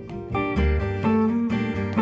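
Instrumental acoustic music: lead guitar and strummed acoustic rhythm guitar over upright bass.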